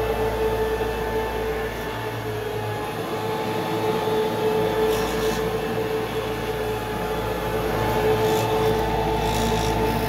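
Bissell BigGreen Commercial BGCC28 wide-area upright vacuum running steadily, with a constant pitched motor tone over the rush of airflow, being pushed over cut-pile carpet. Its brushroll is set too high to make good contact with the carpet.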